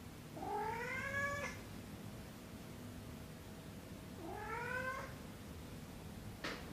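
A domestic cat meowing twice, each call rising in pitch; the first lasts about a second and the second is shorter. A short click near the end.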